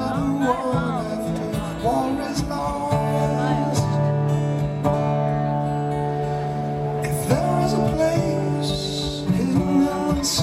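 Acoustic guitars playing a live instrumental break over held chords, with a lead line that slides and bends in pitch near the start.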